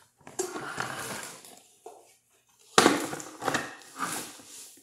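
Toy parts and packaging being handled: irregular rustling and crinkling with small knocks, a brief lull about two seconds in, then louder rustling.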